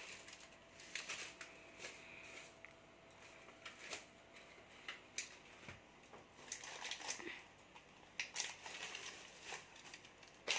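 Thin black plastic carrier bag rustling and crinkling in uneven clusters as things are pulled out of it, with scattered light clicks from items being handled.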